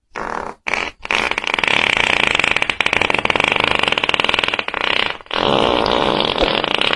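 A dog farting loudly: a few short puffs, then a long buzzing, fluttering fart lasting about four seconds, a brief break about five seconds in, and another long one.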